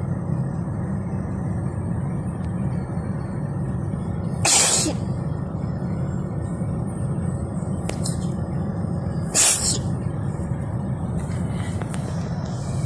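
Two sharp sneezes about five seconds apart, over the steady rumble of road noise inside a moving car.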